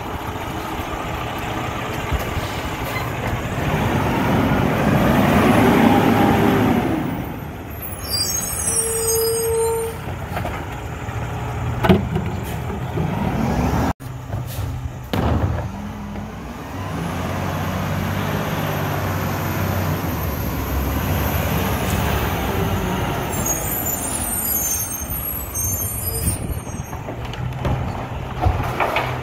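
Garbage truck diesel engines running and driving by, the engine note rising and falling as a truck moves off, with a few brief clicks and hisses.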